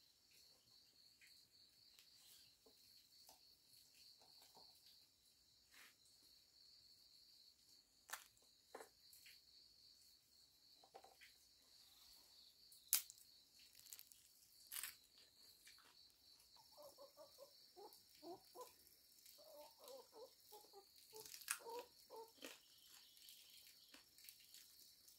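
Near silence: faint ambience with a steady high-pitched trilling, a few soft clicks, and a run of faint short calls about two-thirds of the way through.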